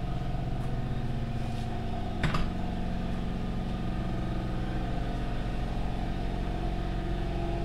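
Steady low machine hum made of several steady pitches, with one brief knock about two seconds in.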